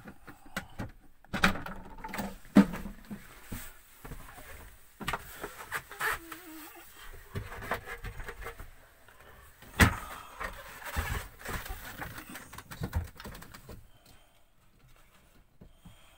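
Irregular clicks and knocks of hands working a loose plastic washbasin drain plug and its fitting, mixed with handling of the phone. A few sharper knocks stand out, the loudest early on and about two-thirds of the way through.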